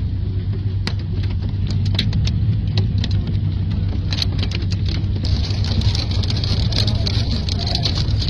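Hailstones striking hard surfaces in scattered sharp ticks over a steady low rumble, with a hiss of heavier hail and rain coming in about four seconds in.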